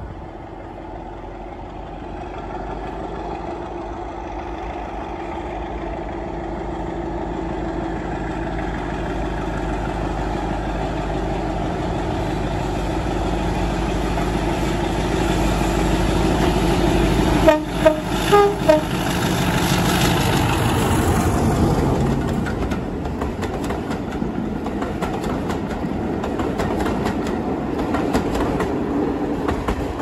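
Diesel locomotive approaching, its engine growing steadily louder, sounding a few short horn blasts a little past halfway. It then passes close by with a drop in pitch, followed by the clatter of wheels over the rails.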